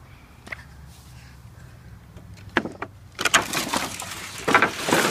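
Scrap wooden boards knocking and clattering against each other as they are handled in a pile: two sharp knocks about two and a half seconds in, then a run of clattering.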